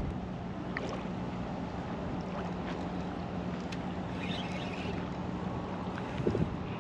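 A steady low engine hum, like a motor running at a distance, over light wind and water noise; the hum fades out near the end.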